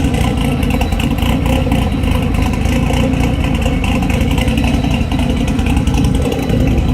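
Freshly reassembled turbocharged engine idling steadily on a loud cam, with its idle tuning not yet sorted out.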